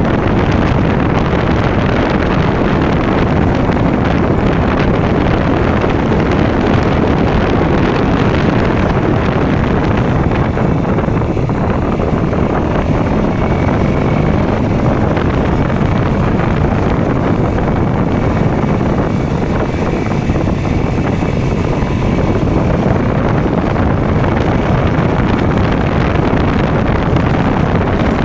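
KTM Duke motorcycle engine running steadily under way, with wind buffeting the microphone.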